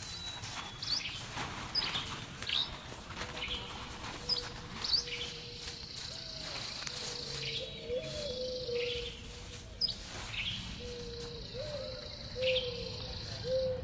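Songbirds chirping in quick, repeated short calls, over the rustle and crinkle of a plastic tarp being unfolded and shaken out and dry leaves crunching underfoot.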